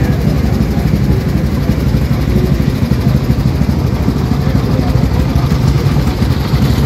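Vintage car and motorcycle engines idling together, a steady loud low rumble.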